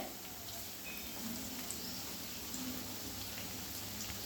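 Marinated, egg-coated chicken pieces frying gently in hot oil in a kadai over a low flame: a soft, steady sizzle.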